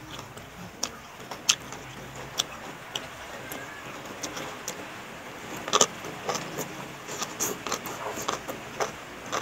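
Close-up eating sounds: noodle salad being chewed and slurped, with irregular sharp mouth clicks and smacks, the loudest about six seconds in.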